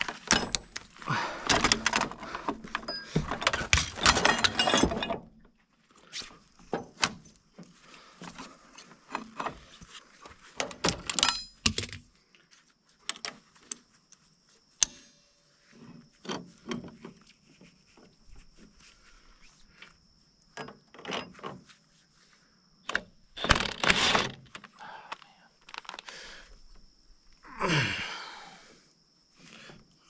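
Metal clinking and clattering as steel wire rope clips and locking pliers are handled against a bulldozer's steel winch cable while a cable loop is clamped. The clatter is dense and loud for the first few seconds, then turns into scattered clinks and knocks, with two louder bursts near the end.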